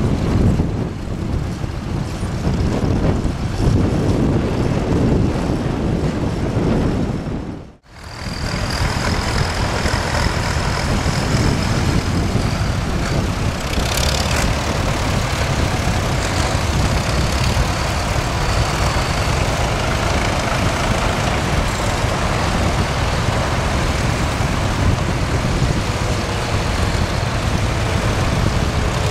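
Engines of a line of antique farm tractors running as they drive past, a steady low mechanical sound. About eight seconds in, the sound drops out for an instant and comes back.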